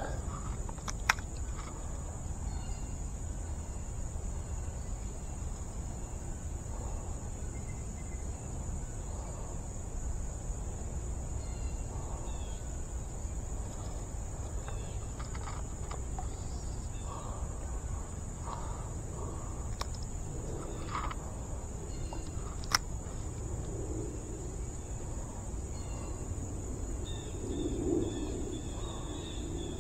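Steady high-pitched insect drone, with a low background rumble and two sharp clicks, one about a second in and one past the two-thirds mark.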